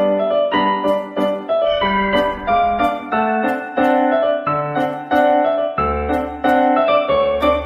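Piano music, with separate notes struck in a quick, even run.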